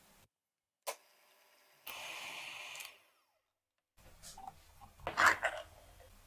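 A ring-pull can of condensed milk being opened: a few small clicks, then a loud crackling pop as the lid is pulled off about five seconds in. Earlier there is a single sharp click and about a second of steady hiss.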